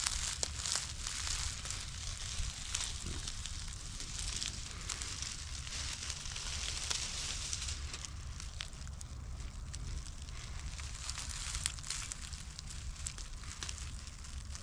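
Wind buffeting the microphone with a steady low rumble, over a hiss of rustling grass and leaves dotted with small crackles.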